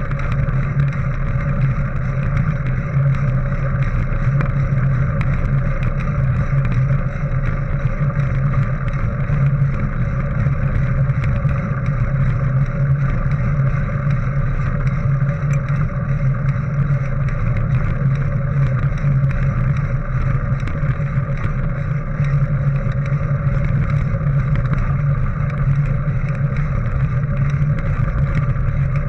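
Steady rolling rumble of a mountain bike riding a dirt and gravel track, heard through a GoPro HERO 3 camera housing, with many small ticks from grit and stones under the tyres.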